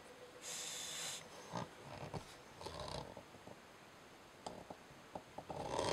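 Faint handling noises from a knife blade being worked against the roller of an edge-testing rig: a short hiss about half a second in, then a scatter of light clicks and taps.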